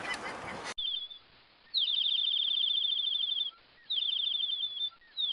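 High-pitched chirping trill in three runs of rapid, quickly repeated notes, each note dropping slightly in pitch, starting after a sudden cut about a second in.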